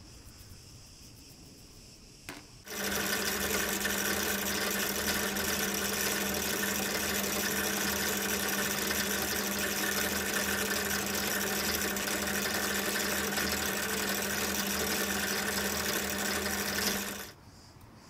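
Bench drill press motor starting about three seconds in and running at a steady speed with a constant hum, spinning a small brass wire brush used to clean a spark plug, then switched off near the end.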